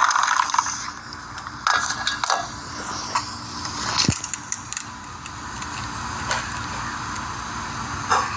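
A person next door coughing in short bursts several times, over a steady hum of traffic. The uploader takes the coughing for a 'coughing bot' that starts up whenever they step out.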